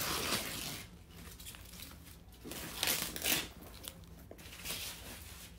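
Thin white packing wrap rustling and crinkling as it is pulled off a new handbag and pushed aside, in two main bursts: one right at the start and a longer one about three seconds in.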